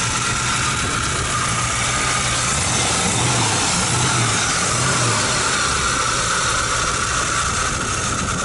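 1957 Chevrolet Nomad's V8 engine idling steadily with the hood open.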